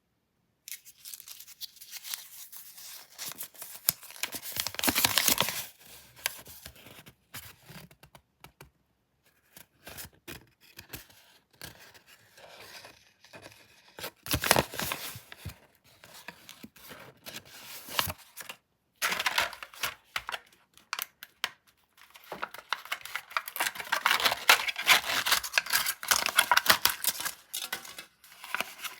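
Candy packaging being torn open and crinkled: wrappers tearing and rustling in several bouts, loudest about four to five seconds in and through the last third.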